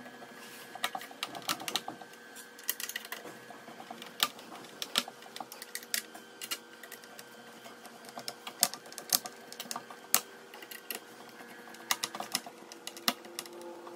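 Irregular small clicks and taps of a screwdriver and plastic and metal parts being worked on a Schneider NSX 630A moulded-case circuit breaker while a motor mechanism is fitted onto it, with a faint steady hum underneath.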